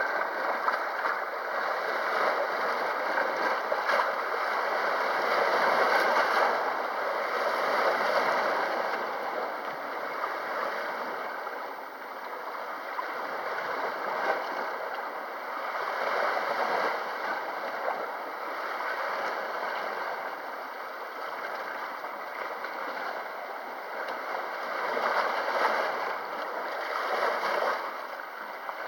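Small sea waves washing against the shore, the wash swelling and falling back every few seconds, with small splashes.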